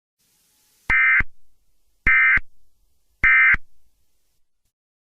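Emergency Alert System end-of-message signal: three short, buzzy bursts of SAME digital data about a second apart. They mark the end of the warning message.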